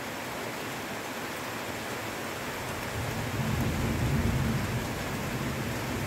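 Steady heavy rain, with a low rumble of thunder swelling in about halfway through and rolling on.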